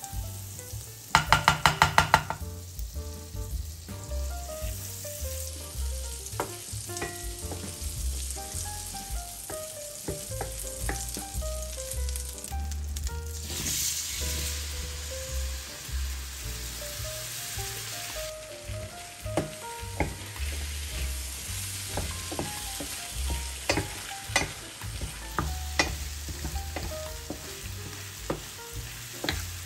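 Kitchen utensil sounds of stirring and scraping in a bowl or pan, with scattered light taps, over faint instrumental background music. A quick run of about eight loud clicks comes about a second in, and a louder hissing stretch comes around the middle.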